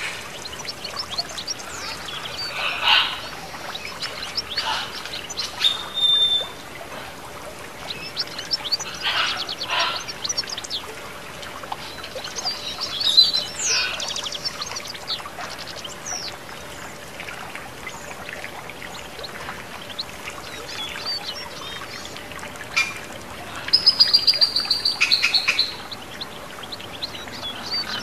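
Several birds chirping and whistling over the steady trickle of water running down a stone fountain. About three-quarters of the way through comes the loudest call, a fast trill of rapidly repeated notes.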